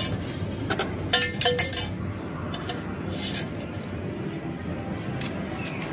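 Amusement arcade ambience: a steady background din with machine music, and a quick run of sharp clinks about a second in, followed by a couple of fainter ones around two and three seconds in.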